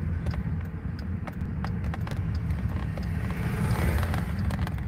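Steady low rumble of road and engine noise heard inside a moving car, with scattered small clicks. A rush of noise swells about three and a half seconds in as a dump truck passes close by.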